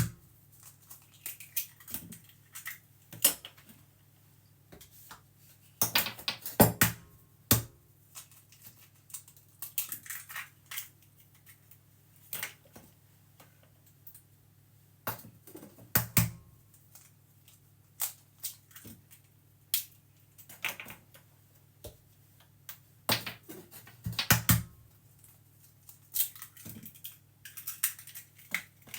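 Eggs being cracked against a bowl or the food processor one after another: scattered sharp clicks and knocks of shell and hard surfaces coming in separate clusters, over a faint steady low hum.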